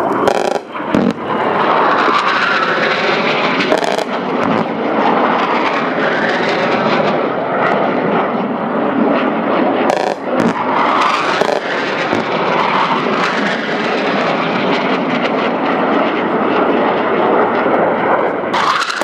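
Military fighter jet's engine roar, loud and sustained, swelling and fading as the jet flies past.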